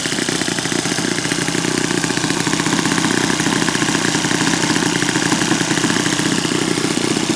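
Saito FA-56 four-stroke glow engine of a radio-controlled Piper Cub running steadily on the ground, propeller spinning, with an even rapid firing beat.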